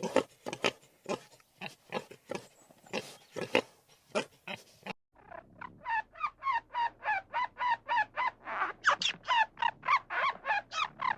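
A pig grunting in a steady series of short grunts. About five seconds in, this cuts off abruptly and another animal takes over with a rapid run of short, high squawking calls, about three a second.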